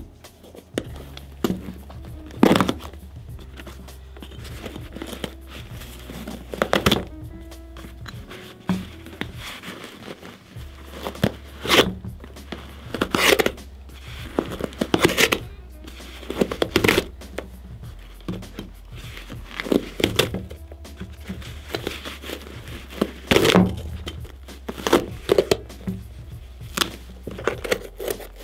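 Background music, with intermittent rustling, scraping and tearing strokes from a Timberland Pro leather work boot being taken apart: laces pulled through the eyelets and a knife cutting into the nubuck leather upper and its lining.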